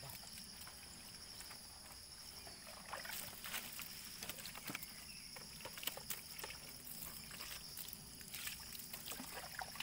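Water poured from a plastic pitcher splashing and dribbling over a muddy motorcycle, in scattered splashes that grow louder from about three seconds in. A steady high insect buzz runs underneath.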